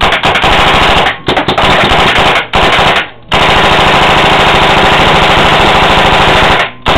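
BT-4 ERC electronic paintball marker being test-fired in rapid strings of shots. Short pauses break up the firing in the first three seconds, then one long unbroken string runs for over three seconds and stops near the end.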